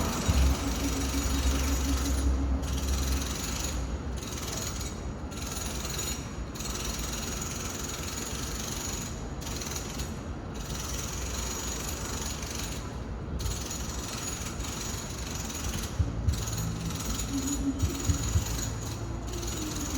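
Home renovation noise coming from another room: continuous mechanical rattling and grinding of construction tools. A power tool's motor tone is heard at the start and comes back about three-quarters of the way through.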